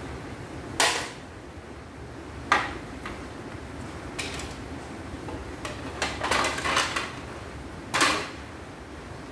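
Hard plastic covers of a portable embroidery machine and a screwdriver knocking and clattering on a wooden workbench as the machine is taken apart. Sharp single knocks about a second in, two and a half seconds in and near the end, with a burst of rattling between six and seven seconds, over a steady low hum.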